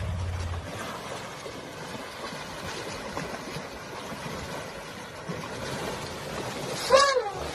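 Water sloshing and splashing as elephants wade through a shallow muddy river, after a low hum cuts off under a second in. Near the end comes one short, loud cry that rises and falls in pitch.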